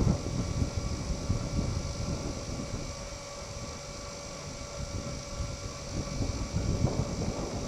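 Wind buffeting an outdoor camcorder microphone: an uneven, gusty low rumble, with a faint steady hum under it.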